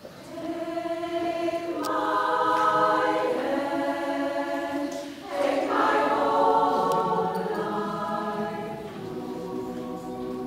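Women's choir singing slow, held chords in several parts, swelling about two seconds in and again about halfway through, then softer near the end.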